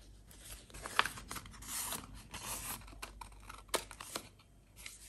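Paper and card being handled: quiet rustling and sliding of paper pieces, with a few sharp clicks, the strongest about a second in and again near the four-second mark.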